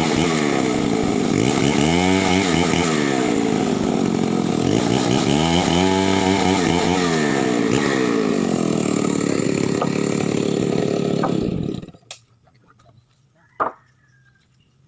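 Chainsaw running at high revs, its pitch dipping and recovering three times as it cuts wood under load, then cutting off abruptly about twelve seconds in. A single sharp knock follows near the end.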